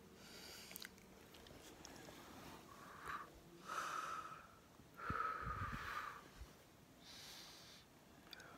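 A dog's noisy breathing, with two longer, louder breaths about three and a half and five and a half seconds in.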